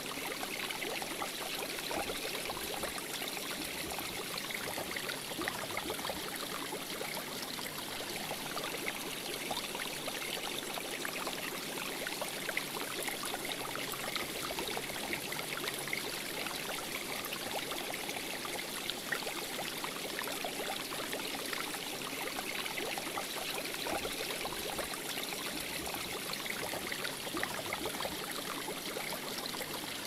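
Steady sound of water running in a tropical saltwater aquarium: an even hiss with fine crackling.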